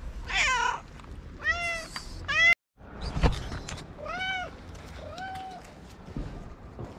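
Stray cats meowing for food, about five meows, the first one falling in pitch. About halfway through the sound drops out for a moment, and just after it there is a single thump.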